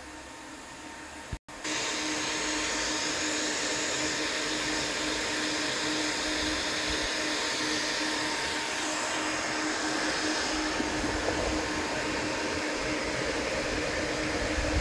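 Cooling fans of a six-card Nvidia RTX A5000 GPU mining server running steadily under full mining load: a loud, even whoosh of blower fans with a steady hum under it. It cuts in abruptly after a brief break about a second and a half in.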